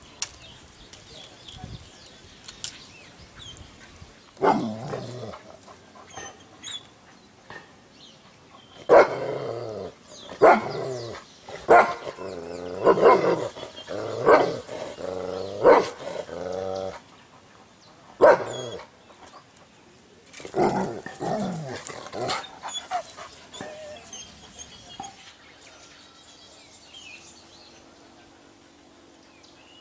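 Dog barking in loud, drawn-out barks: one about four seconds in, a quick run of about eight from about nine to seventeen seconds, then a few more just after.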